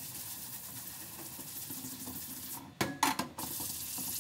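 Blue scrub pad rubbing over a wet screen-printing mesh soaked with emulsion remover: a soft, steady wet scrubbing, with a few short louder knocks about three seconds in.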